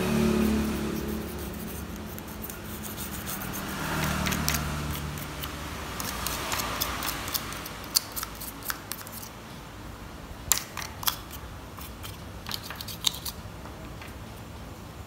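Toothbrush bristles scrubbing the bare circuit board of a Nokia 1280 mobile phone, a scratchy brushing that swells and fades over the first half, as the board is cleaned. Then come several sharp separate clicks and taps as the board and brush are handled on the mat.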